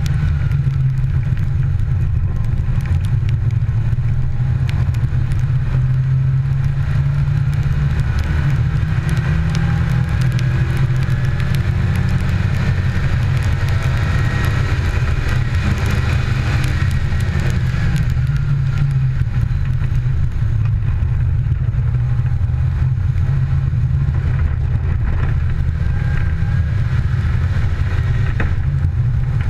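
Rally car driven flat out on a wet stage, its engine running hard under load, the note rising and falling with gear changes, over heavy wind and road noise on an outside-mounted camera. Scattered ticks of spray and grit against the car run through it.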